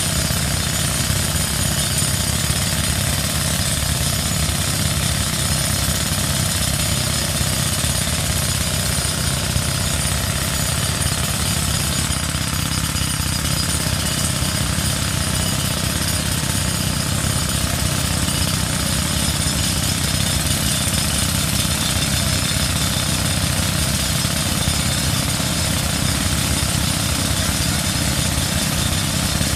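Wood chipper running loud and steady, a continuous mechanical noise with a fast, even pulse that does not change.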